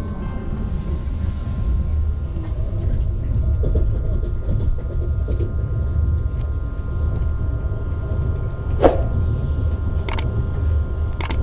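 Steady low vehicle rumble, with faint steady tones above it. A sharp click comes about nine seconds in, another a second later, and two more near the end.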